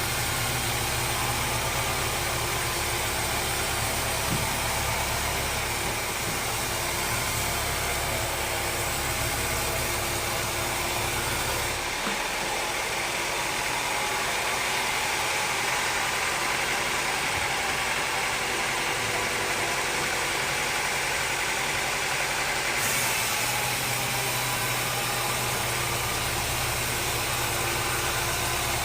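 Sawmill machinery running steadily, with the pitch and tone of the running shifting about twelve seconds in and shifting back near twenty-three seconds.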